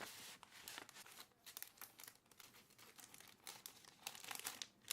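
Pen writing on paper, close to the microphone: faint, irregular, scratchy strokes as details are filled in on a form.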